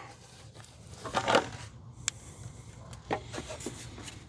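Faint hands-on handling noises: a short rustle about a second in, then a few light clicks, as the license plate lights are worked out of the liftgate.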